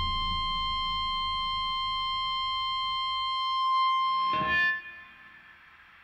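Background music: a held high tone with its overtones over a low drone that slowly fades, cut off by a short, loud hit about four and a half seconds in.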